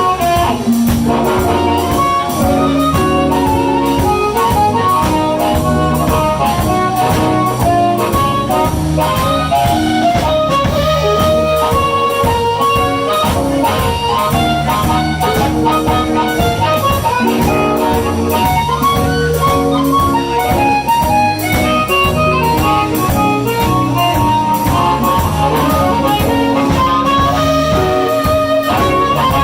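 Blues band playing live: an instrumental break between sung verses, with a melodic lead line over bass and a steady drum beat.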